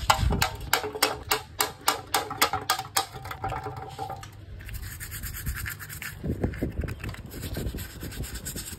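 A clogged motorcycle fuel pump filter being knocked and scrubbed over a tray of petrol to shake the black dirt out of it: a fast, even run of sharp strokes, about five a second, for about three seconds. It is followed by softer, uneven scratchy brushing.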